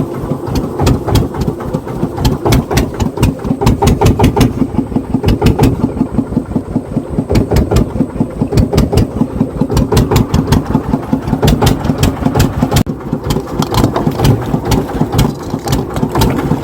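Fishing boat's engine running steadily, chugging with a fast, even beat.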